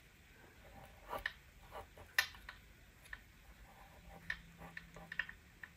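Pencil drawing on paper: faint, irregular short scratches and ticks as the strokes go down.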